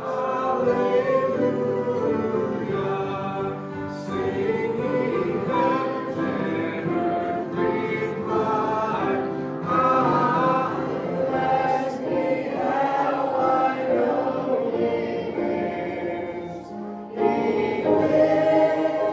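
A choir singing a gospel hymn, many voices together, continuing without a break and swelling louder near the end.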